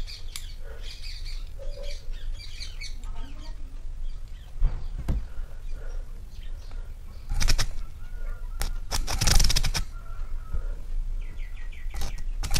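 Sharp crackles and clicks as bare wire ends are touched together while an air cooler motor's speed leads are tested on mains power, over a low steady hum. Birds chirp faintly in the background.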